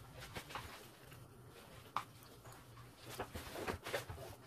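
Faint handling noises of leatherette cushion pieces being moved and arranged on a work table: soft rustles and light knocks, with one sharper click about two seconds in and more rustling near the end.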